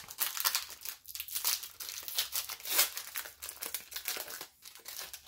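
Foil wrapper of a 2020 Donruss baseball card pack being torn open and peeled off the cards by hand: dense, irregular crinkling and crackling with a few brief pauses.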